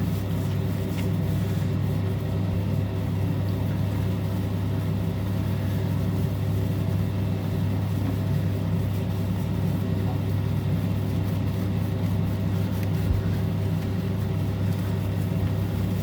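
A steady low mechanical hum with a few held higher tones above it, unchanging throughout.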